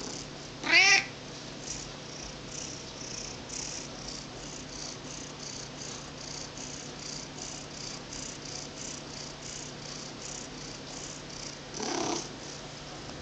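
Domestic cat meowing: one short, loud meow about a second in and a quieter, lower meow near the end. Soft purring fills the stretch between them.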